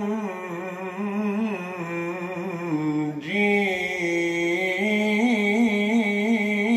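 A man's solo voice singing an unaccompanied Islamic ibtihal, drawing out a long wordless melisma with wavering, ornamented pitch. There is one brief break about three seconds in before the held line continues.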